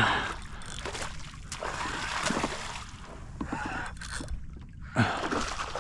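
Water splashing and sloshing as a hooked snook thrashes at the surface beside a kayak, with sharper splashes at the start and again about five seconds in.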